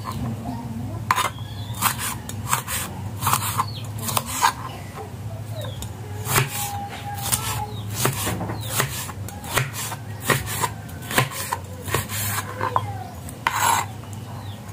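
Cleaver knife chopping tomatoes on a plastic cutting board: a string of irregular knocks as the blade hits the board, with pauses while slices are moved by hand. A steady low hum runs underneath.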